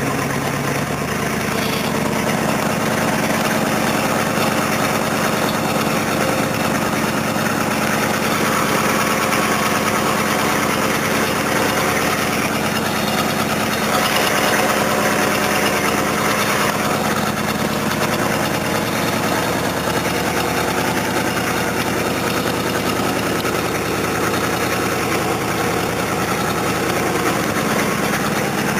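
An engine running steadily at a low, even hum, with no revving or breaks.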